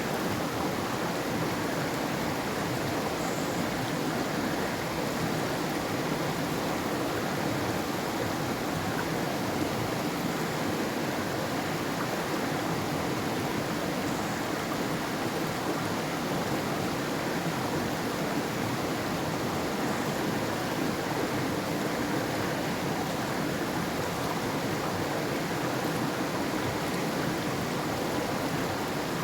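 Forest river flowing, a steady unbroken rush of water.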